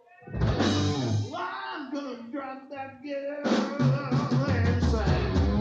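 Live hard-rock band playing with electric guitar, bass and drums. The guitar bends and slides through notes, and the whole band comes in heavier about three and a half seconds in.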